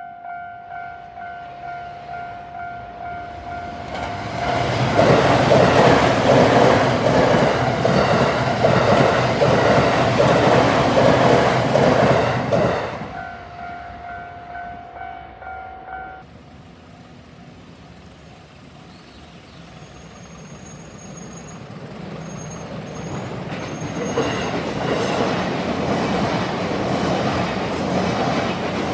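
Japanese railroad crossing warning bell ringing in a steady, pulsing clang while a train rumbles past the crossing for about eight seconds. The bell goes on briefly after the train has passed and stops about sixteen seconds in. Near the end the rumble of another train builds again.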